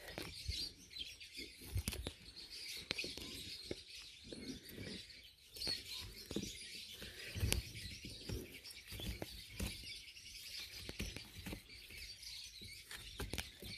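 Scattered light taps and scrapes of a small metal chisel prying at a rock lodged in a rotted hollow of a Chinese elm's dead wood, with a few louder knocks. Birds chirp steadily in the background.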